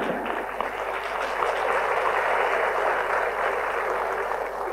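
Audience applauding: a steady round of clapping that fades near the end.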